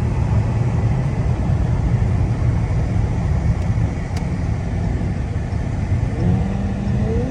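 Supercharged car engine running with a steady low rumble; about six seconds in it begins to rev, its pitch rising.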